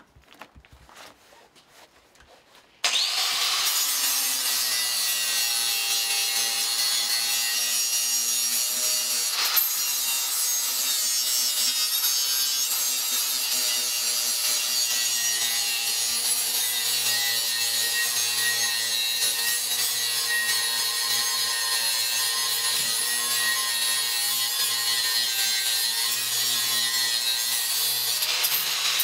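Handheld electric grinder switched on about three seconds in and held against a sheet-metal part: a steady motor whine under harsh, continuous grinding noise.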